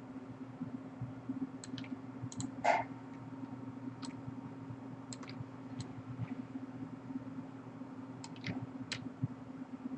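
Sparse, light clicks of computer input while working at a desk, about a dozen scattered irregularly, over a steady low electrical hum. One brief, louder soft rustle comes about three seconds in.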